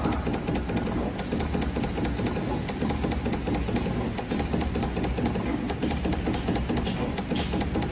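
Automatic PVC label dripping machine running, its multi-nozzle dispensing head moving over the mould: a steady low machine hum with rapid, regular ticking.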